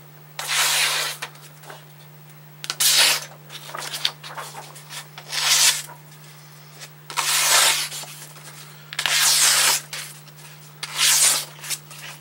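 Freshly sharpened large Bowie knife slicing through stiff, heavy paper in six strokes about two seconds apart, each a hissing rasp lasting about half a second to a second. It is an edge test: a burr on the edge makes the blade hang in the paper.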